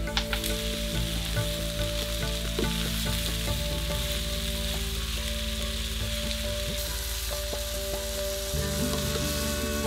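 Chopped onions, curry leaves and dry chillies sizzling in hot oil in a clay pot, stirred with a wooden spatula; a steady frying hiss.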